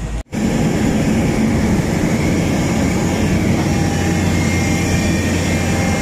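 Tracked excavator's diesel engine running steadily close by, a constant low hum that cuts in after a brief gap in the sound just after the start.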